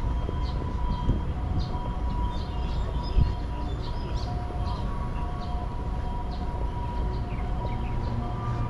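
Outdoor park ambience: birds chirping in short, repeated calls over a steady low rumble, with a steady thin tone held underneath.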